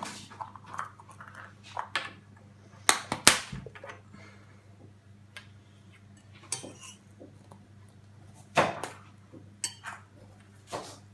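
Scattered clicks and clatters of surprise eggs and their plastic capsules and toys being handled and opened. There are sharper knocks about three seconds in and again near nine seconds, over a low steady hum.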